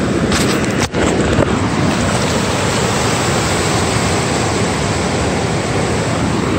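Shallow surf washing up over the sand, mixed with wind rumbling on the microphone; the sound drops out for an instant about a second in.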